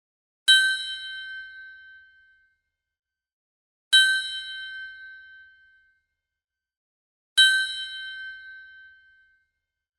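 Stock sound-effect ding, a metallic bell-like tone struck three times at even intervals about three and a half seconds apart, each strike ringing out and fading over about two seconds.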